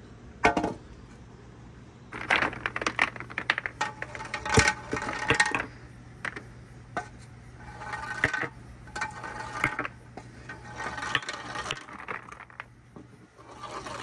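Marbles rolling and clattering down a marble run track, in bursts of quick clicks and clacks with short ringing tones every second or two.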